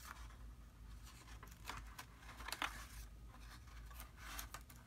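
Faint paper-handling noise: light rustles, scrapes and ticks as a cardstock box and a paper strip are moved about in the hands, a few short ones scattered through.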